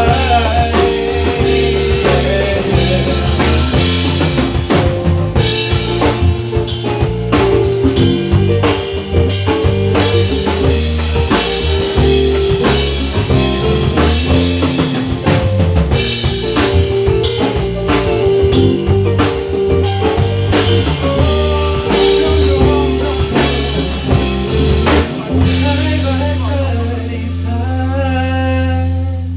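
Pop band music with drum kit, bass and guitar in an instrumental passage; the drums stop about four seconds before the end, leaving held chords.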